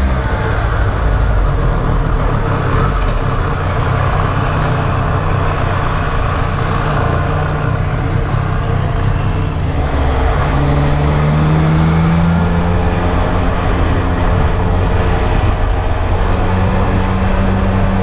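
Triumph Street Triple R's three-cylinder engine running under way on a motorcycle ride, its note shifting with the throttle and climbing about ten seconds in, over a steady rush of road and wind noise.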